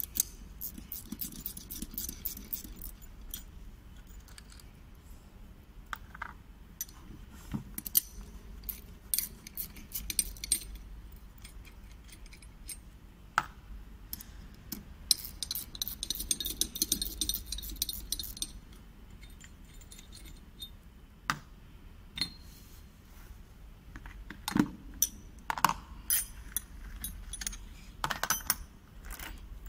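Stainless steel valve parts and tools handled on a table: scattered metal clinks, light knocks and scrapes as the valve is taken apart, with a run of fast ticking and scraping about halfway through.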